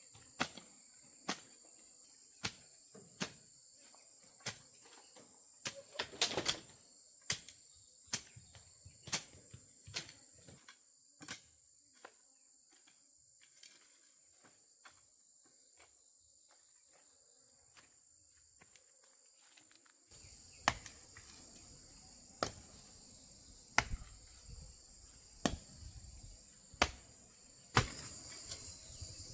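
Sharp knocks, roughly one a second at irregular gaps, like tool strikes on wood, over a steady high buzz of crickets.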